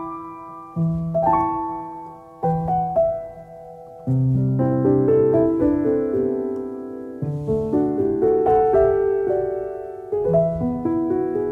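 Background piano music: gently struck single notes and chords, turning fuller and louder about four seconds in.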